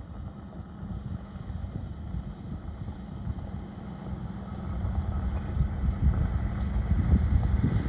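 Jeep engine running at low speed, a steady low rumble that gets louder in the second half.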